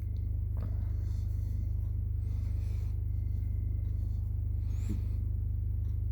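Steady low hum, with faint scratching and two light clicks as small plastic parts and a spring of a Mercedes W123 window switch are handled and fitted.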